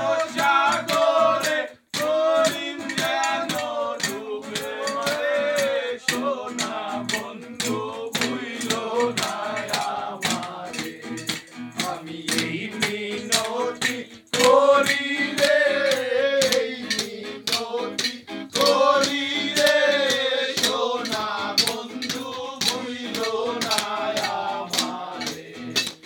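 Men singing together to a strummed acoustic guitar, the strums keeping a steady beat under the voices.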